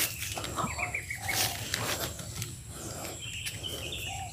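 Wild birds chirping and calling in short high notes, with a quick run of notes about a second in, over rustling and light clicks as the scoped rifle is swung around.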